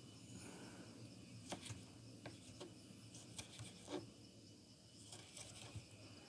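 Kitchen knife cutting firm tomatoes on a chopping board: faint, irregular clicks of the blade meeting the board, over faint chirping insects.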